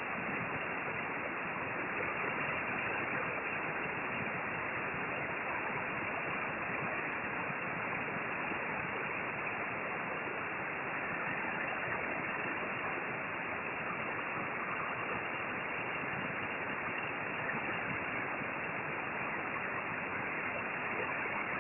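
A steady, even rushing hiss with nothing else standing out.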